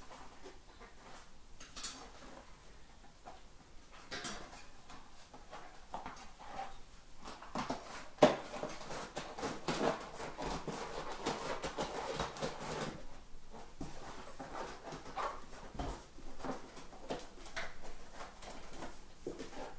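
Maxxis Minion DHF tire being worked onto a WTB Frequency i23 rim by hand: rubber rubbing and scraping on the rim, with scattered clicks and a sharp knock about eight seconds in. The rubbing is densest from about seven to thirteen seconds in.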